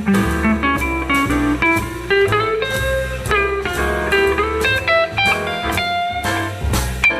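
Guitar music in a bluesy style: quick plucked notes over a steady bass line.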